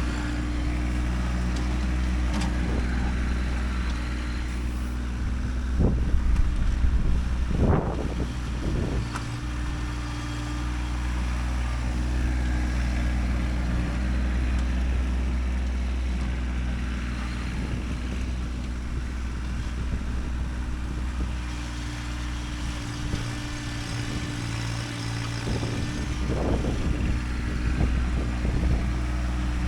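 Kubota tractor's diesel engine running steadily under work, with louder bursts of clatter and knocks about six to nine seconds in and again near the end.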